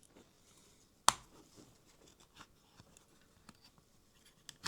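A sharp plastic click about a second in, then a few faint taps and clicks, as the body of a Hornby Class Q6 OO gauge model locomotive is worked loose from its chassis.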